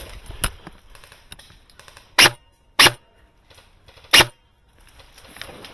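Airsoft gun firing three single shots: two about two seconds in, just over half a second apart, and a third more than a second later, each a short sharp crack.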